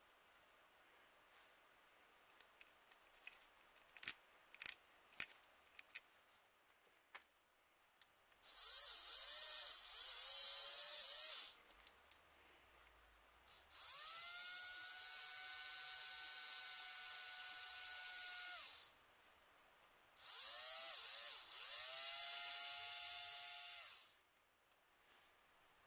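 A small electric rotary tool (mini drill) run three times, each start a rising whine that settles into a steady high whine with a hiss over it. A few sharp clicks come before the first run.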